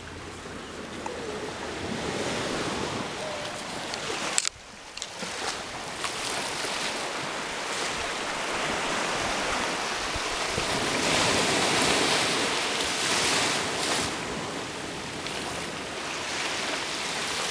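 Surf washing onto a sandy beach: a steady wash of waves that swells louder about two-thirds of the way through. A single sharp click a little over four seconds in.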